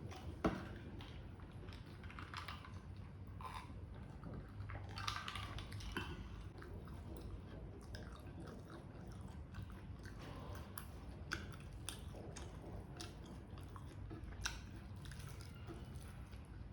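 A person chewing and biting food close to the microphone, with scattered small clicks and one sharper bite about half a second in.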